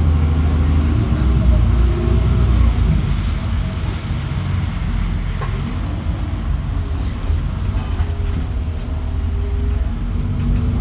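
Temsa MD9 LE city bus heard from inside the passenger cabin: a steady low engine and drivetrain rumble over road and tyre noise. Its pitch glides up and down as the bus changes speed.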